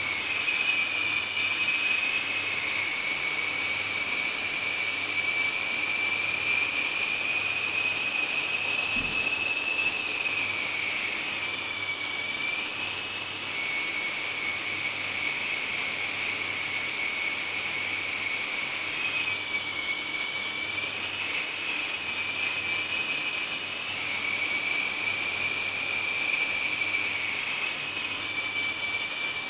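High, eerie 'hyuu, hyuu' whistling of air in an underground station's waiting room, which comes after an express train has rushed through the tunnel. Several whistling tones sound together and sag in pitch, then rise again, in slow swells about every eight to nine seconds.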